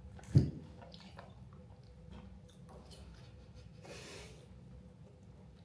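People eating at a table: quiet chewing and small scattered clicks, a brief low vocal sound just after the start, and a short breathy rustle about four seconds in.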